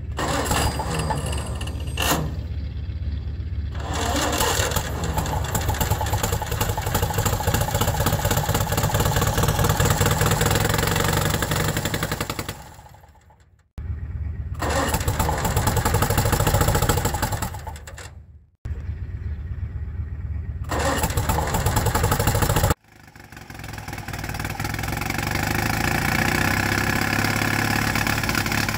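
Old Caterpillar D6 bulldozer's engine running steadily during start-up. It is broken by three brief breaks where the sound fades or cuts off and then picks up again.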